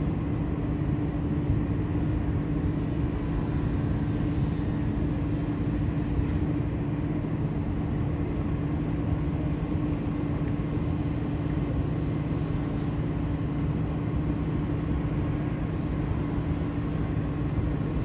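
A boat's diesel engine runs steadily, a low hum with a constant pitch over an even rumble.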